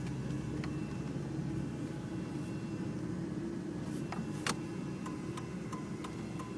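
Car engine and road noise heard from inside the cabin while driving. About four seconds in, the turn-signal indicator starts ticking steadily at about three clicks a second.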